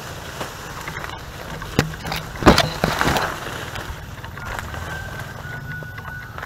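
Footsteps pushing through dry leaf litter and undergrowth, twigs and brush crackling, loudest in a cluster about two and a half seconds in, over a steady low rumble.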